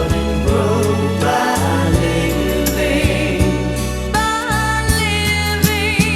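1970s soft-pop recording: voices singing in harmony over a band with steady bass and drums, holding long wavering notes from about four seconds in.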